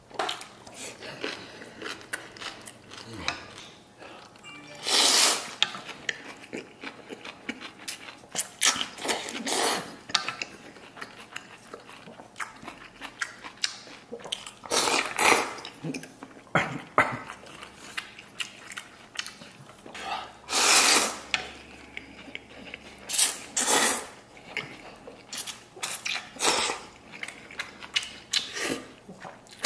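A person loudly slurping noodles from a spicy soup in about half a dozen hard bursts, with wet chewing and smacking clicks between the slurps.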